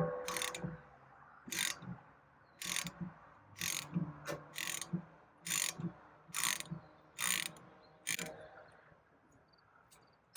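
Hand ratchet wrench clicking in repeated back-and-forth strokes, about one a second, as it turns the Rivet Beast's knockout screw to drive the rivet out of a saw tooth. The strokes stop shortly before the end.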